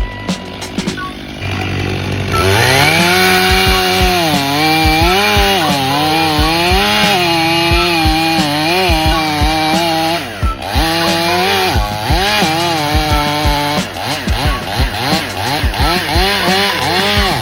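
Chainsaw running and cutting, its engine pitch rising and falling repeatedly as it bogs under load and picks up again. It drops out briefly about ten seconds in, then revs in quicker swings near the end.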